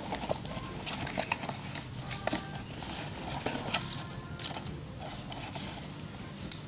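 Irregular clicks, taps and rustles of a cardboard toy box and a plush toy chick being handled, with a short cluster of sharper knocks about four and a half seconds in.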